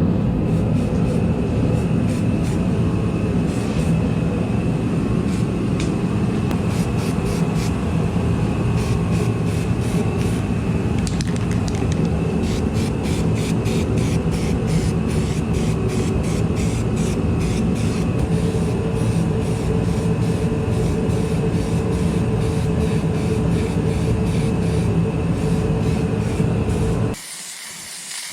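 Primer being sprayed from a powered spray gun: a steady machine drone under a hiss of spraying air. The drone cuts off abruptly about a second before the end, leaving a softer hiss.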